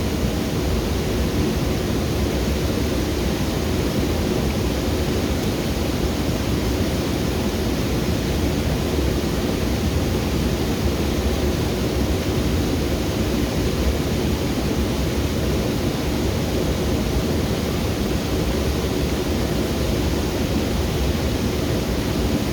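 Steady loud rush of water from a jungle waterfall and its cascade, an even, unbroken roar of falling water.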